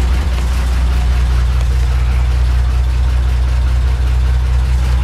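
A 1932 White Model 602 truck's engine idling steadily, heard from inside the cab.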